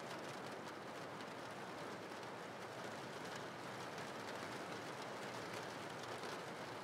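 Soft, steady rainfall: an even, unbroken hiss of rain.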